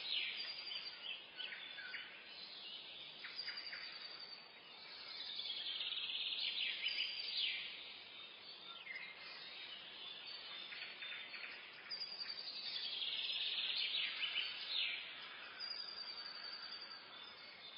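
Forest birdsong at dawn: several birds chirping and singing over a faint steady hiss. A fast trill falling in pitch repeats about every six to seven seconds, the loudest part of the sound.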